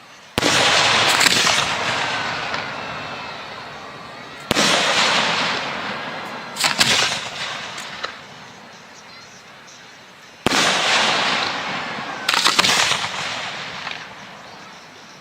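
Professional aerial firework shells bursting three times. Each burst starts suddenly and fades over several seconds, with a flurry of sharp cracks a second or two after each.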